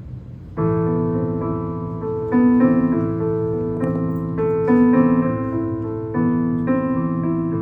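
Solo piano starts playing about half a second in, the opening of a song's introduction: sustained chords with new notes struck every second or two.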